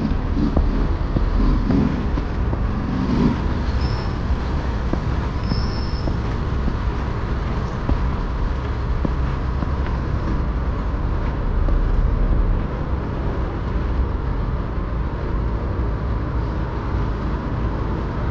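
Steady road-traffic noise with a deep rumble, broken by two short high chirps about four and six seconds in.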